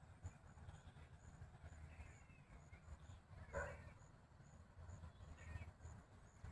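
Near silence with a low steady rumble, broken by a few faint, short bird calls, one of them louder about three and a half seconds in.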